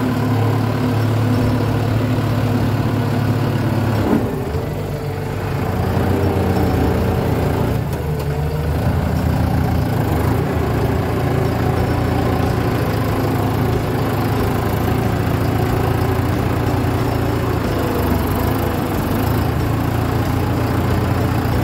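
Kubota M9540 tractor's diesel engine running steadily while the tractor pushes and levels dirt with its blade, heard from the driver's seat. The engine note dips and shifts briefly about four seconds in and again around eight seconds.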